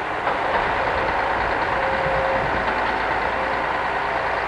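Engine of a log-laden logging truck running steadily.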